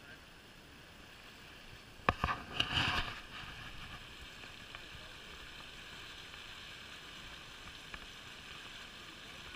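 Small stream babbling over a riffle, a steady rushing that gets a little louder about three seconds in. Just before that comes a second of rustling and a few sharp knocks.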